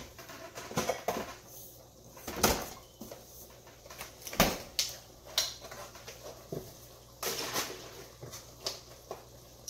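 Kitchen clatter: about ten sharp knocks and clicks at irregular intervals, as cupboard doors and containers are handled.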